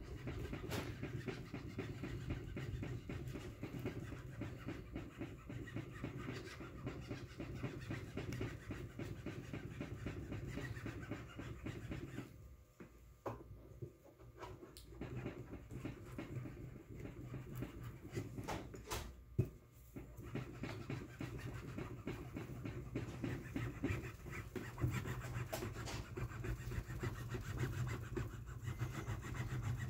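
Hand roller tool pressed and run along the groove of an aluminum frame, a steady rasping, scraping rumble with quick ticks, with short pauses about twelve and nineteen seconds in.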